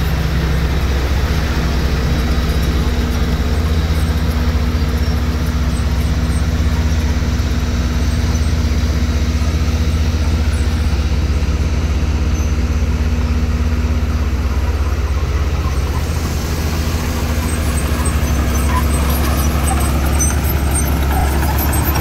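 Diesel engine of a heavy earthmoving machine running steadily, a deep, even drone.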